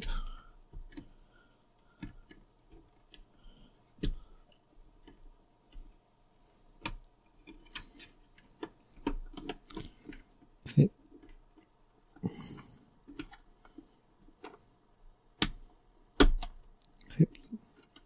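Scattered small plastic clicks and knocks with brief rustling, as the wires of a replacement rocker switch are fed through a gap and the switch is fitted back into a plastic vacuum handle.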